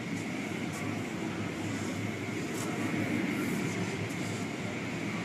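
Automatic car wash machinery running with a steady noise and a faint, steady high tone.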